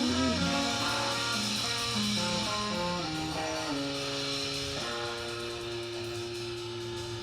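Live band ending a song: a guitar plays a short run of changing notes over a held bass note, then a final chord held and ringing out, slowly fading.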